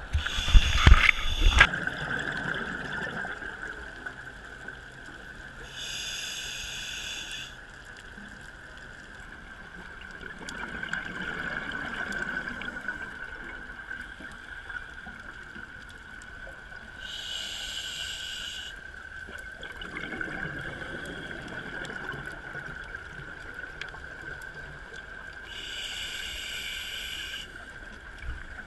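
Scuba regulator breathing heard underwater: three hissing inhalations, each about a second and a half, alternating with bubbly, gurgling exhalations. A steady high whine runs throughout, and a few loud knocks come in the first second or so.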